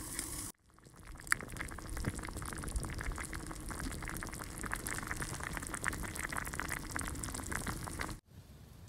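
Chicken pieces sizzling and bubbling in a pan, with a pot of water boiling beside it: a dense, fine crackle over a hiss that starts about half a second in and cuts off suddenly near the end.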